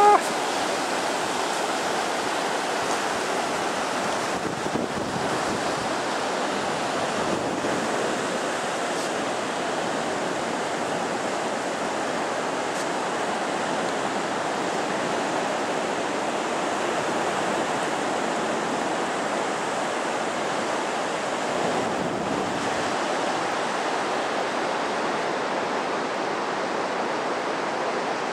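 Ocean surf breaking and washing up over a sandy beach: a steady rush of water.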